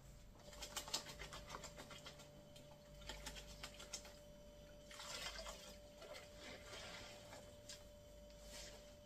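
Faint swishes and light taps of a wet mop being worked across a tiled floor, with a faint steady whine underneath.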